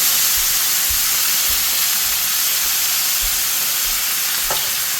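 Water poured onto caramelised onions frying in hot coconut oil sizzles loudly in a steady hiss as it boils off. There is a light tap near the end.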